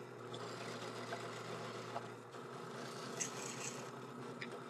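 Drill press motor running steadily while a twist bit drills screw holes in an acrylic router base plate, with a few light clicks.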